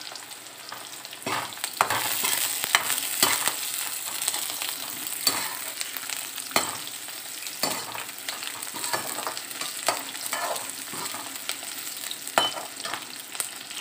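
Sliced onion, garlic and carrot sizzling in hot oil in a metal kadhai while a perforated metal spatula stirs them, scraping and knocking against the pan at irregular intervals.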